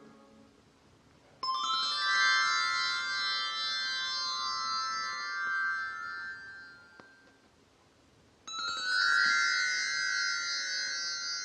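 Synclavier II digital synthesizer playing two bright, bell-like tones about seven seconds apart. Each starts suddenly with a quick upward sweep and rings out over several seconds.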